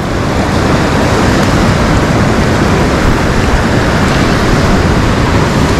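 Surf breaking and washing over shoreline rocks, a steady loud rush of water.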